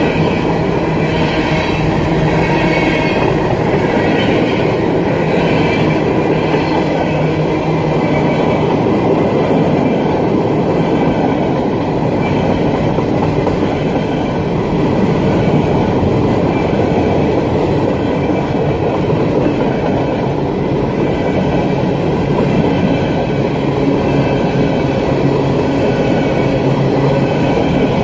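Freight train of covered hopper cars rolling past at close range: a loud, steady rumble and clatter of steel wheels on the rails.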